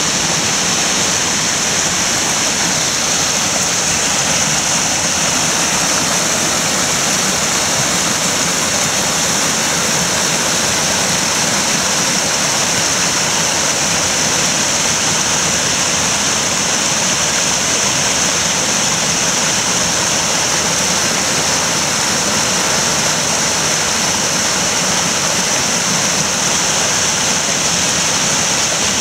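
Creek water rushing over rock ledges and small cascades: a steady, unbroken rush of water.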